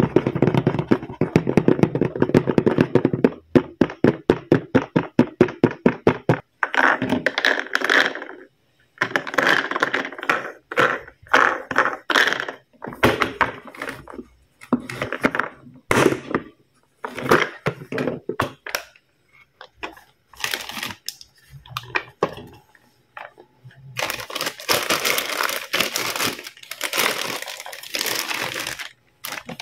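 Fingertips and nails tapping rapidly on a hard plastic toy case, then irregular plastic clicks, knocks and scrapes as the case is handled and opened. Near the end, a long stretch of crinkling from clear plastic bags.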